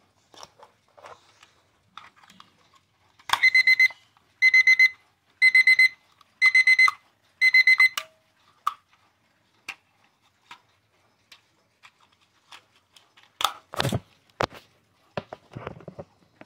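HaUZ Living Basics quartz alarm clock's alarm beeping: five quick bursts of rapid high beeps, about one burst a second, then cutting off. Scattered clicks and a few knocks follow.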